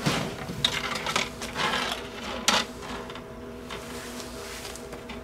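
Thin steel rods clicking and clattering against each other and the metal-topped table as they are handled, several times in the first half, over a steady electrical hum.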